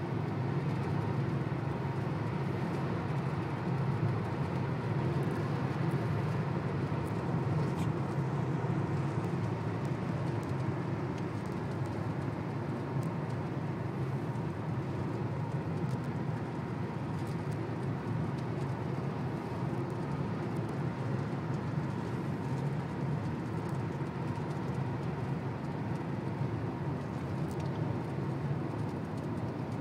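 Steady low road and engine noise inside a car's cabin while driving at highway speed.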